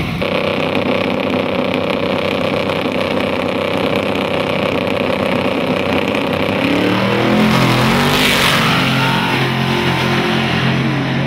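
Drag-race car engines: one held at steady revs, then about seven seconds in both cars launch, with a rush of noise and engine notes rising in pitch as they accelerate away down the strip.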